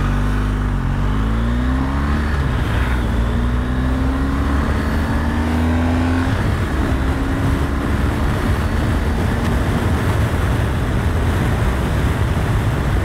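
Motorcycle engine accelerating away, its note rising with short dips at gear changes. From about six seconds in, wind and road noise at speed takes over from the engine.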